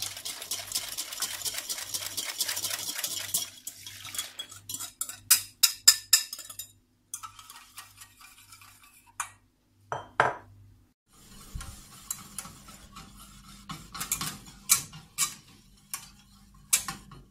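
Stirring thickening lemon pastry cream in a metal saucepan on the stove. Fast, continuous scraping strokes against the pan for the first few seconds, then scattered clinks and taps of the utensil on the pan rim and sides.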